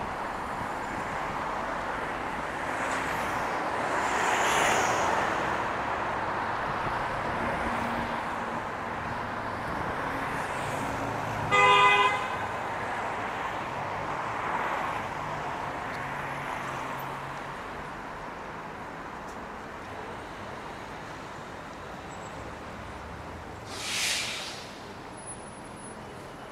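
Street traffic with cars passing steadily, one swelling past a few seconds in. About halfway through a car horn gives one short honk, the loudest sound. Near the end there is a brief hiss.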